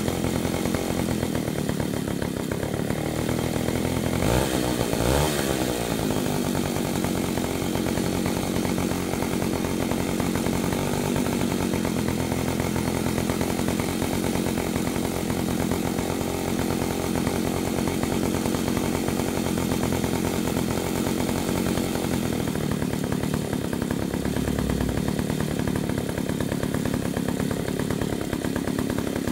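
A Dolpima BK-3A two-stroke chainsaw engine idling steadily on the ground while its carburettor is adjusted with a screwdriver. About four to five seconds in, the engine speed swings up and drops back.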